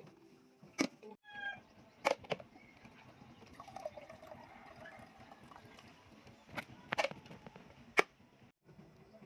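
A few sharp clicks and knocks, about six in all and spread unevenly, over a low background hum. A short wavering call sounds about four seconds in.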